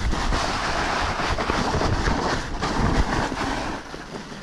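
Mountain bike rolling fast down a wet dirt trail: a steady rumble of tyres on dirt with scattered knocks and rattles from the bike over bumps, and wind buffeting the microphone. It quietens near the end as the bike slows.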